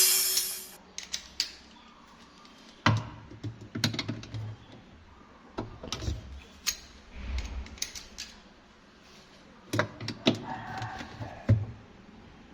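Irregular clicks and knocks of hard parts and tools being handled, a few of them with a dull thud.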